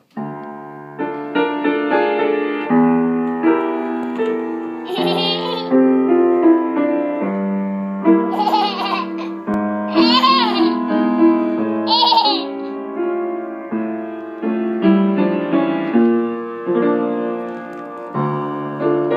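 Piano being played, a steady run of single notes and chords. A baby gives four short high-pitched squeals and laughs over it in the middle.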